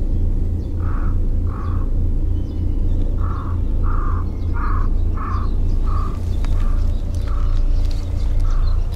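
A bird calling a run of about ten short, evenly spaced calls, roughly one every half second, over a steady low rumble.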